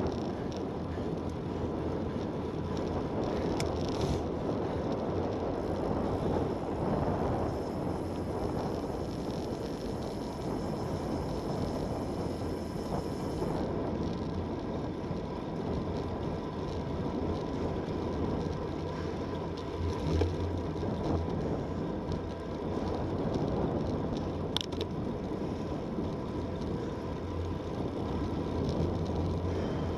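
Steady wind and tyre noise from a road bike riding at about 30 to 40 km/h, heard on a handlebar-mounted action camera's microphone.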